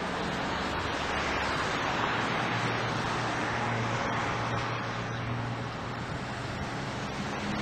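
Fowler traction engine, built up for high-speed road running, driving along the road: a steady rushing noise with a low, even hum underneath.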